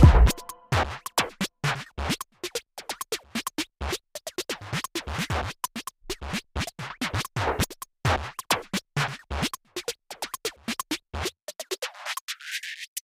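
Background electronic music in a sparse, choppy section of sharp clicks and scratch-like hits with no melody. Near the end the low end briefly sweeps away.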